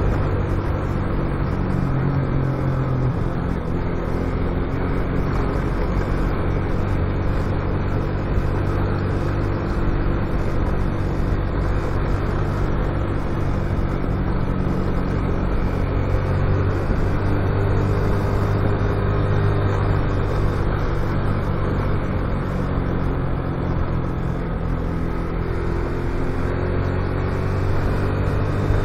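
Motorcycle engine running steadily under way, with road and wind noise; its note rises near the end.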